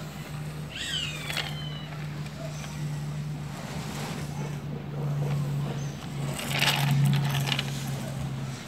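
Toy tractor implement with a plastic blade pushed by hand through sand, the sand scraping and crunching, loudest about seven seconds in, over a steady low hum.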